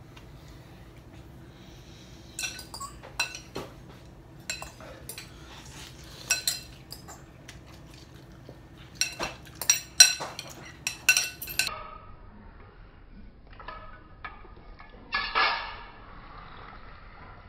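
Metal forks clinking and scraping against ceramic bowls while noodles are eaten, in clusters of sharp ringing clinks, thickest about nine to twelve seconds in, with noodle slurping. A short, noisier sound comes about fifteen seconds in.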